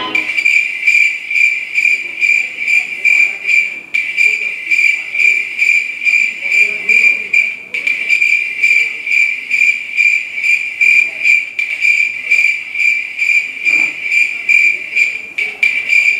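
Recorded cricket chirping played as a stage sound effect: a loud, steady, high trill pulsing several times a second, with brief dropouts where the recording loops.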